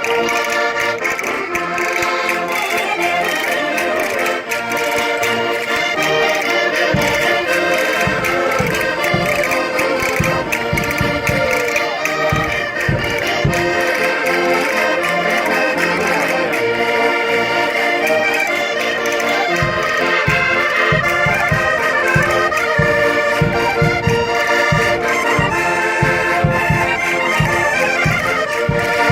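Minho concertinas (diatonic button accordions) playing a lively folk dance tune, with chords and melody sounding together. From about seven seconds in, a steady low beat runs underneath.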